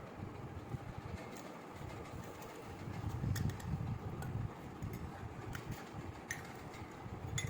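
Handling noise from toy kitchen pieces: scattered light clicks and taps over an uneven low rumble.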